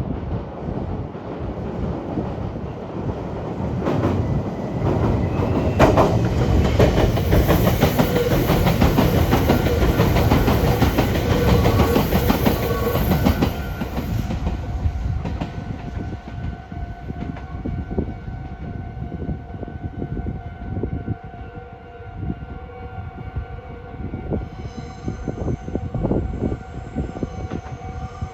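An electric train running over the points at a rail junction, its wheels knocking over the rail joints in a rapid clatter. The clatter is loudest from about four to fourteen seconds in, then dies down, leaving a steady whine.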